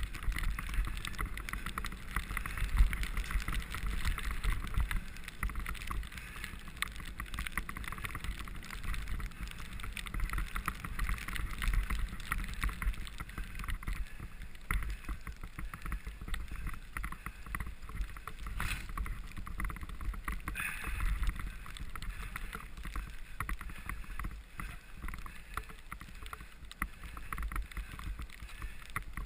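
Mountain bike ridden fast over a bumpy snow-covered trail: continuous tyre noise and rattling of the bike, with wind rumbling on the microphone. A couple of sharper knocks come a little past the middle.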